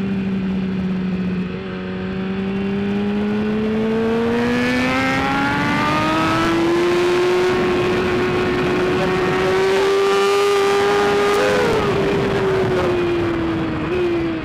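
Stock 2013 BMW S1000RR's inline-four engine under way on track: steady at first, then pulling up through the revs over several seconds and holding high, before rolling off near the end with a brief throttle blip.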